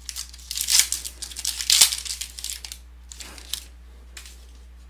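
A trading-card pack wrapper being torn open and crinkled, with crackly tearing for about the first two and a half seconds, then a couple of softer rustles.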